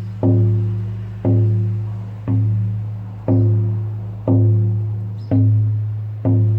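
Lakota healing frame drum struck at a slow, steady pace, about one beat a second, like a heartbeat. Each stroke gives a deep, resonant boom that fades before the next.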